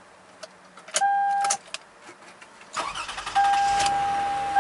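A Toyota Highlander's electronic warning chime sounds once briefly. About three seconds in, a few clicks lead into a steady whooshing fan noise, and the chime tone then holds continuously over it.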